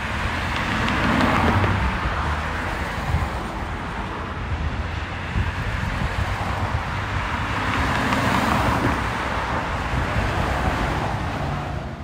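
Road traffic on a multilane city street: a steady wash of tyres and engines that swells as vehicles pass about a second in and again around eight seconds in.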